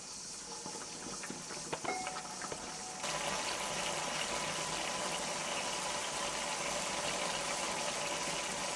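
A few light clicks of a spatula against the pan as the curry is stirred, then from about three seconds in a steady hiss and bubbling of the fish curry boiling in the pan.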